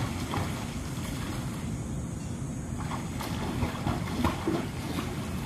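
Wind rumbling on the microphone, with a few light splashes of water from a swimmer clustered a little past halfway.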